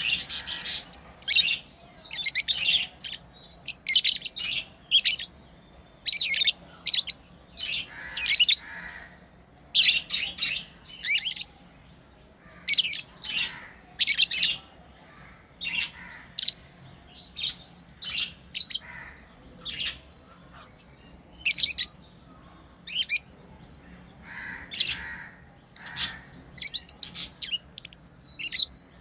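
Pet lovebirds chirping: many short, high-pitched chirps and squawks in irregular clusters, with brief gaps between them.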